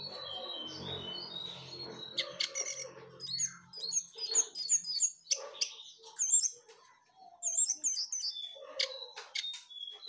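Caged jongkangan songbird singing a lively, varied run of clear whistled and chirping notes that slide up and down in pitch, with a brief pause about seven seconds in. A faint low rumble sits under the first few seconds.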